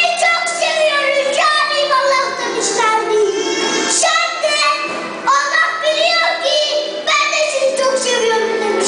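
A young boy's high voice reciting a Turkish poem in a melodic, sing-song way, with long held and falling phrases, amplified through a microphone and loudspeaker. A faint steady low hum runs underneath.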